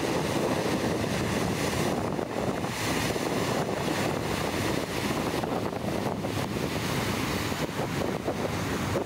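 Wind buffeting the camera's built-in microphone, mixed with the rushing wake and steady engine drone of a Viking 72 sportfishing yacht running at speed.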